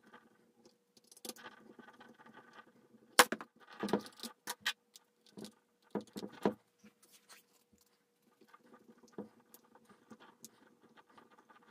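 Hand-work on a plastic RC car chassis: a hex driver and a plastic air dam clicking and knocking against it as the part is held in place and screwed on. The clicks come irregularly, with a sharp knock about three seconds in as the loudest and bursts of clicks around four and six seconds, over a faint steady hum.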